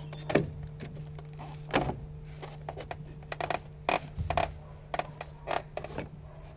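Irregular wooden knocks and clunks of hand tools being handled, set down and struck against a log timber, over a steady low hum.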